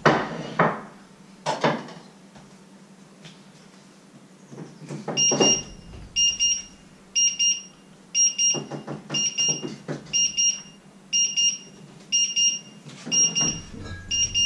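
An electronic alarm beeper sounds a short, high beep about once a second, starting about five seconds in, ten beeps in all. Louder knocks and clatter come at the very start, again a second and a half later, and in among the beeps.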